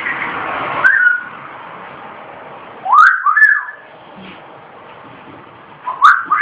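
Cat meowing: short high meows that rise and fall in pitch. There is one about a second in, a pair at about three seconds and another pair near the end.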